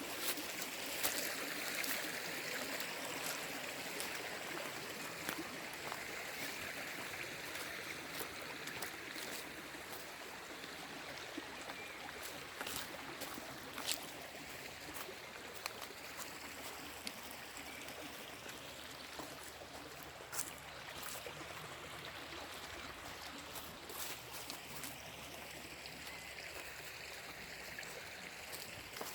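Small river or stream running over rocks: a steady rush of water, easing off a little over the first several seconds, with scattered light clicks and taps.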